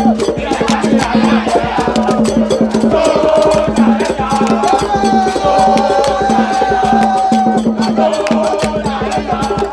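Music with a fast, steady clicking percussion beat under a held, sliding melody line.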